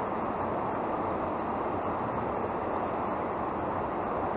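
River water rushing over rocks, a steady rush without a break.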